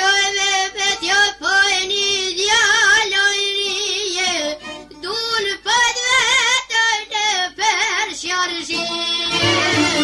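Albanian folk song sung in a high voice with heavy vibrato and ornamented, wavering phrases. Near the end a low drumbeat comes in with the band.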